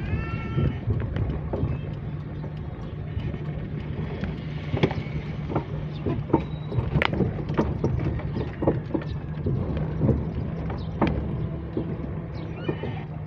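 A motor vehicle engine running steadily while driving slowly, with frequent short rattles and knocks from the vehicle over the road. A brief pitched voice-like sound comes right at the start.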